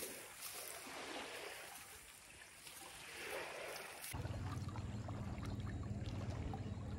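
River water splashing and sloshing, swelling and fading several times. About four seconds in, the sound changes abruptly to a steadier wash with a low hum underneath.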